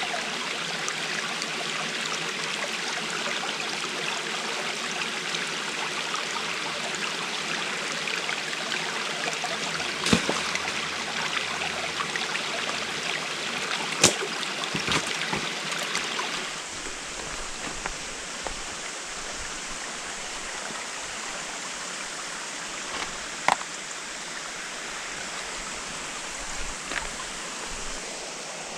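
Steady rushing of a stream's flowing water, with a few sharp knocks scattered through it. A little past halfway the rushing shifts and becomes slightly quieter.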